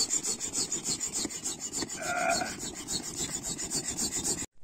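Air blown through a hose into glowing campfire embers to fan them, a loud rasping hiss with a fast, even pulsing, as sparks fly up from the coals.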